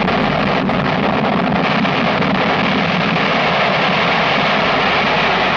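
Rocket engine at liftoff: a loud, steady rushing noise with a faint hum in it.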